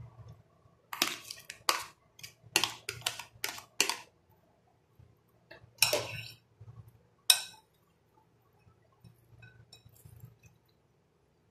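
Metal spoon clinking and knocking against a glass bowl and plastic container as chopped onion is scraped in: a quick run of sharp clinks in the first four seconds, two more a couple of seconds later, then only faint handling noise.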